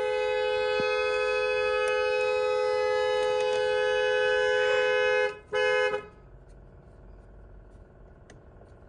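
BMW X6M dual-tone car horn stuck on, sounding steadily and cutting off about five seconds in, then one short blast. It blares unbidden after a steering wheel swap because a washer on a screw touches the horn contact and closes the horn circuit.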